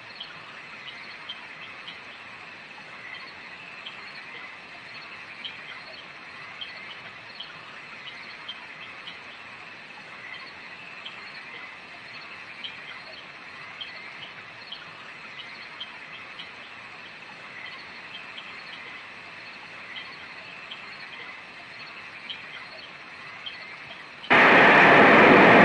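Steady outdoor ambience with faint chirps repeating at fairly even intervals. About a second before the end, a portable radio comes on with a sudden loud rush of static.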